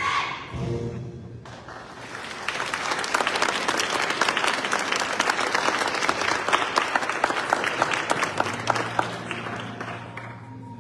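Audience applause: many people clapping for several seconds after a musical number stops about a second in, thinning out near the end as quiet music comes back in.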